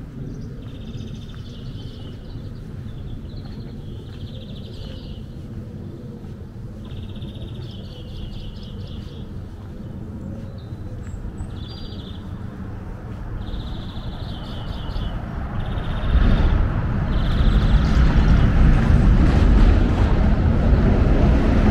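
Small birds calling in short, repeated chirping phrases over a low outdoor rumble. About sixteen seconds in, a much louder low rumble swells up and stays.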